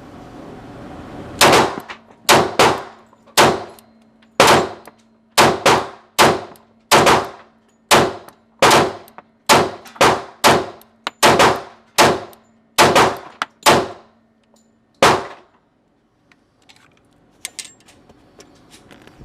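A rapid series of about twenty sharp gunshots with a metallic ringing clang, unevenly spaced half a second to a second apart over some fourteen seconds. The firing stops about four seconds before the end.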